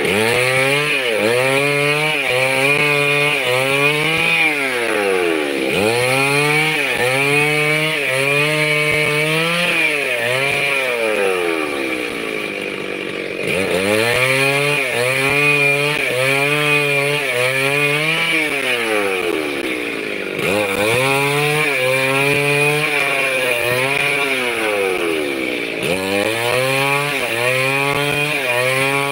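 Stihl two-stroke chainsaw at full throttle ripping a wooden plank lengthwise, with a steady cutting hiss. The engine pitch sags and climbs back four times, as the saw is eased off and pushed on again.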